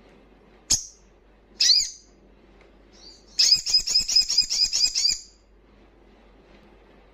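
Male olive-backed sunbird (sogon) calling: a sharp single note, then a short high call, then a fast chattering run of about a dozen high chirps lasting under two seconds.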